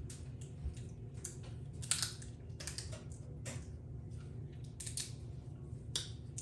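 Snow crab leg shells being cracked and picked at close range: irregular sharp cracks and crunchy clicks, several a second, the loudest about two seconds in. A steady low hum runs beneath.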